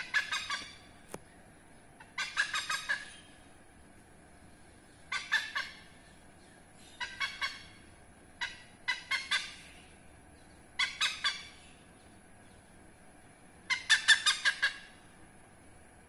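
Oriental pied hornbill calling: short bursts of rapid, harsh cackling notes, four to six notes per burst, repeated every couple of seconds, with the loudest burst near the end.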